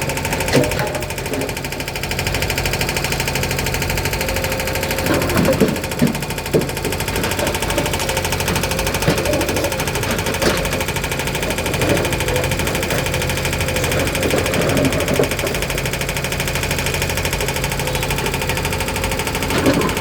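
JCB 3DX backhoe loader's 49 hp diesel engine running steadily under work, with scattered clanks and knocks from the loading of big stones, several around five to seven seconds in.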